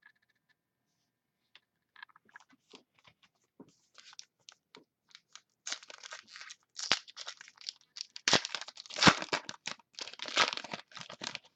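A trading-card pack wrapper being torn open and crinkled by hand. A few faint clicks and rustles come first, then dense crackling from about halfway in, loudest near the end.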